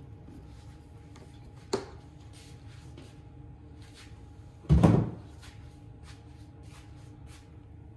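Handling noise after fuelling a chainsaw: a sharp click about two seconds in, then a heavy, dull thud near five seconds as the plastic gas can is set down, with a few light ticks over a faint steady hum.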